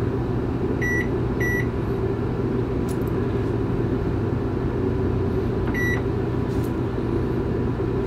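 Contoure convection microwave's keypad beeping as its buttons are pressed: two short high beeps about a second in and half a second apart, and one more near six seconds. A steady low hum sits under the beeps throughout.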